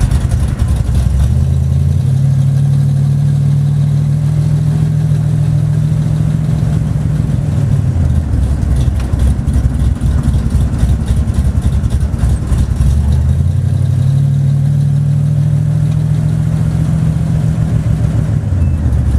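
Big-block 440 V8 of a 1971 Plymouth Scamp, heard from inside the cabin while driving. The engine note climbs and holds as it pulls, eases off about eight seconds in, pulls up again around thirteen seconds and eases off near the end.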